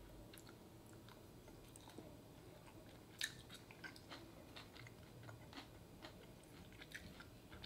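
Faint chewing of pane bread with beef bulgogi: soft, scattered mouth clicks over a near-silent room, with one sharper click about three seconds in.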